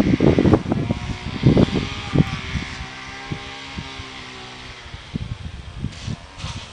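Wind buffeting the microphone in gusts, loudest in the first two seconds; as the wind drops, a steady engine drone from some motor comes through for a few seconds in the middle.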